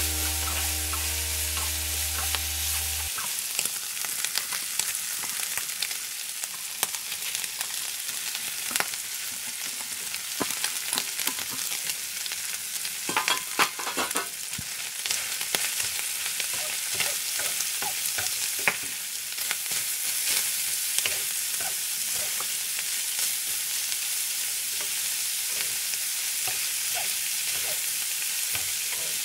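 Sliced pork and vegetables sizzling in a frying pan as they are stir-fried with chopsticks. There are scattered clicks of the chopsticks against the pan, busiest about halfway through.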